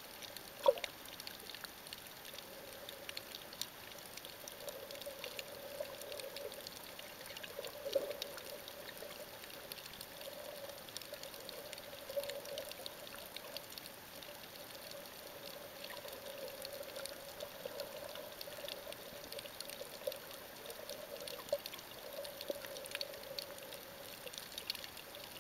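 Underwater ambience picked up by a submerged camera: muffled, shifting water noise with a scatter of fine crackling clicks, and two louder knocks, one just under a second in and one about eight seconds in.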